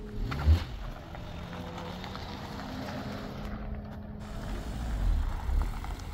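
A motor vehicle's engine running steadily, with a brief low thump about half a second in.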